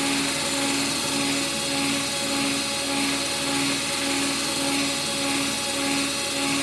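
Steady machine drone whose tone swells and fades about twice a second, like a motor running continuously in a workshop.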